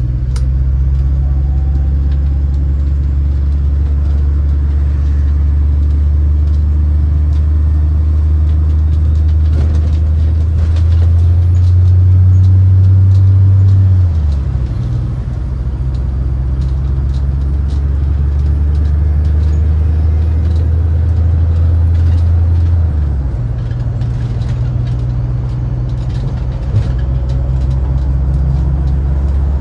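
MAZ-203 city bus under way, heard from inside the passenger cabin: a steady low engine and drivetrain drone that builds to its loudest about twelve seconds in, drops suddenly about halfway through and drops again about three quarters through, with scattered light rattles.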